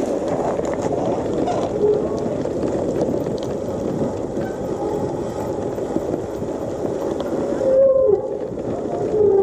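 Wind rushing over the camera microphone and tyre rumble as a gravel bike rolls fast down a rough road, with a few brief squeals.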